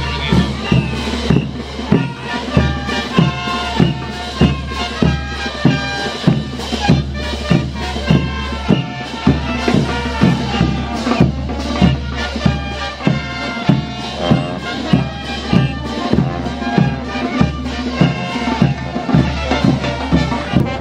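Morenada being played by a band: sustained wind-instrument melody over a steady bass-drum beat, about two strokes a second.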